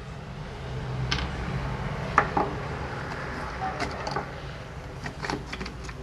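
Scattered small clicks and knocks of a screwdriver and the plastic housing of a Skil electric drill as the housing is unscrewed and pulled apart, over a steady rumble of passing road traffic.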